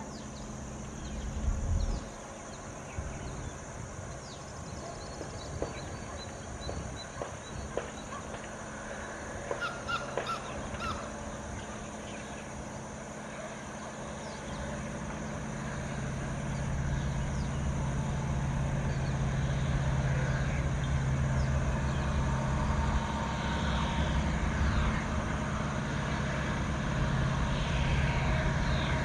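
EMD WDP-4D diesel locomotive's two-stroke V16 engine running under power as it approaches with a passenger train: a low, steady drone that grows steadily louder over the second half.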